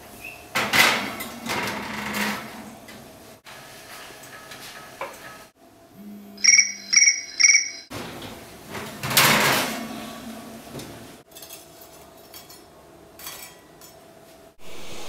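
A metal baking sheet sliding onto an oven rack with the oven door clattering shut, then an oven timer beeping three times about six seconds in, and another clatter of the oven door and tray about nine seconds in.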